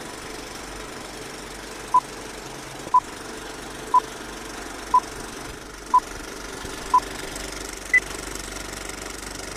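Film-leader countdown sound effect: the steady whir and rattle of an old film projector, with a short, loud beep once a second six times, then a single higher-pitched beep.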